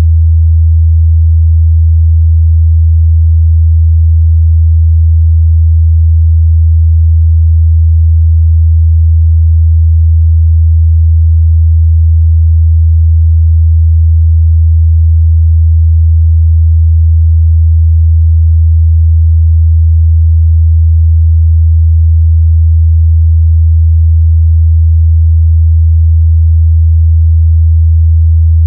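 A steady 81 Hz sine test tone, a single low bass pitch held constant, used to check the mid-bass response of speakers and headphones.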